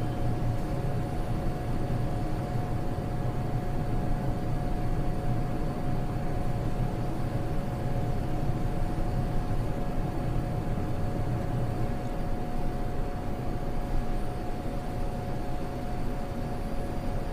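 Haas CNC mill powering up: a steady machine hum and noise with a faint, even whine held throughout.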